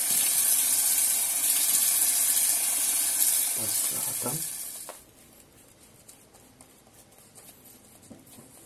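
Bathroom sink tap running steadily, shut off about five seconds in.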